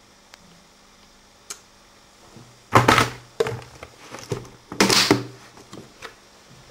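Handling and movement noises as a person gets up from a table and moves off: a couple of faint clicks, then two loud, brief rustling scrapes about two seconds apart.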